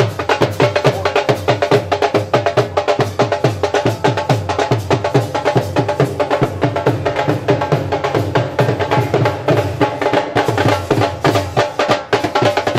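Dhol drums beating a fast, driving dhamal rhythm, with a steady pitched instrument sounding over the drumming.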